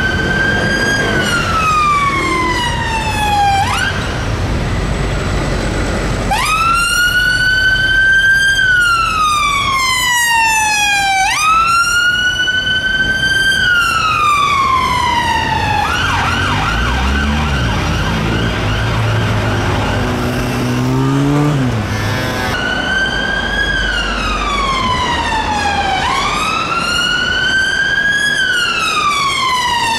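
Electronic sirens of UK emergency vehicles, a police car and an ambulance, sounding a slow wail: each cycle rises quickly, then falls over two to three seconds. In the middle stretch the siren switches for several seconds to a fast, warbling yelp.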